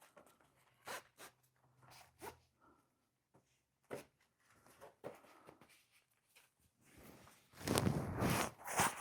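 Fabric crossbody bag being handled: scattered small clicks and rustles as its strap is adjusted, then a louder stretch of zipping and rustling over the last second and a half.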